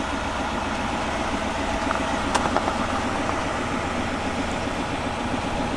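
2020 Chevy Silverado 3500HD engine idling steadily, heard from inside the cab. A brief click comes about two and a half seconds in.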